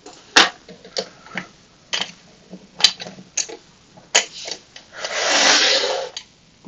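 Sharp metal clicks and taps from lock-picking tools and a lock cylinder being handled, with a louder scrape lasting about a second near the end.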